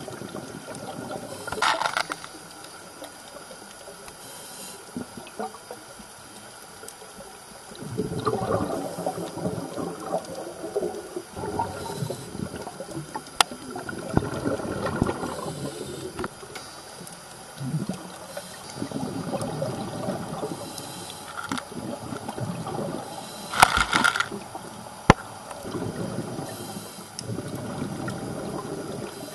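Scuba regulator underwater: the diver's exhaled bubbles gurgle out in bursts of two or three seconds, every five or six seconds, with a few sharp clicks in between.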